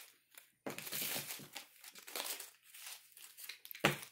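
Crumpled paper dollar bills crinkling and rustling as a capuchin monkey handles them, with one sharper crackle near the end.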